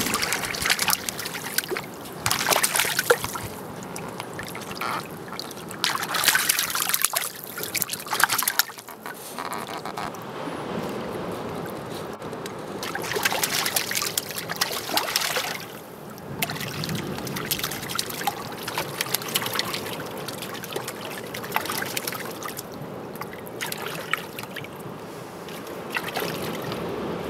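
Rockhopper penguins splashing as they jump into and bathe in a shallow tidal pool, in repeated bursts of splashing with water trickling and lapping between them.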